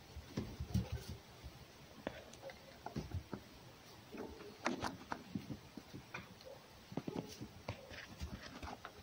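Scattered rustles and light knocks of a fox and a cat shifting about in the hay inside a wooden box shelter.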